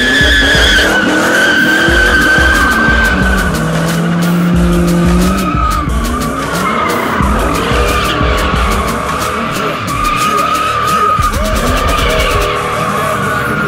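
Car tyres squealing long and unbroken in burnouts, wavering in pitch, over engines revving hard; one engine holds steady high revs for a couple of seconds around the middle.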